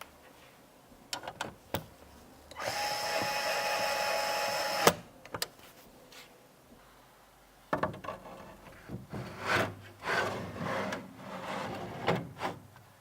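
A small electric screwdriver running for about two seconds at a steady speed, ending with a click, with scattered clicks and clattering of parts being handled before and after.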